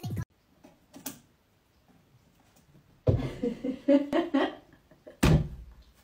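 Muffled voice-like sounds for about a second and a half, then a single sharp thump about five seconds in.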